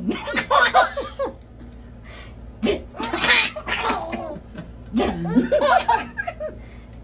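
People laughing in three bursts, with breathy, gasping laughs between voiced ones.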